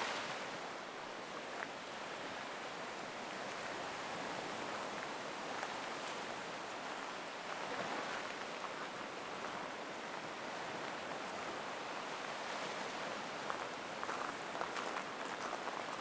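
Black Sea surf washing on the shore: a steady wash of waves that swells and eases, with a few faint ticks near the end.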